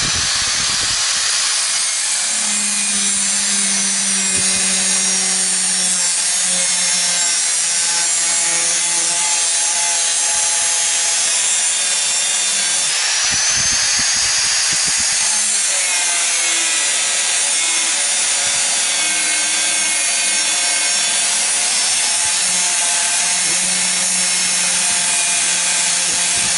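A 4-inch angle grinder cutting and grinding away the excess steel of a knife blank, running loud and steady under load. Around the middle its motor whine briefly rises in pitch, then drops back.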